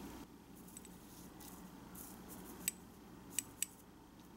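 Metal tweezers clicking against a small ceramic dish as they press a tiny piece of pork into breadcrumbs: three sharp clicks in the second half, with fainter ones earlier.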